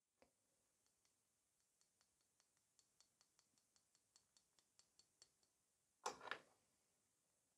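Near silence with faint, light ticks, about four a second, as sugar glitter is sprinkled from a metal spatula onto a gel nail, followed by a brief louder rustle a little after six seconds.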